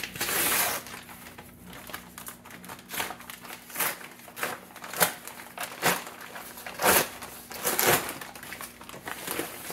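Brown paper shipping mailer being handled and opened, its stiff paper crinkling in a run of irregular sharp crackles, the loudest about five, seven and eight seconds in.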